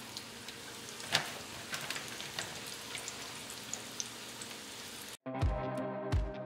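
Battered walleye pieces sizzling and crackling in hot canola oil in a frying pan, with scattered pops. About five seconds in the sizzle cuts off suddenly and music with a steady beat begins.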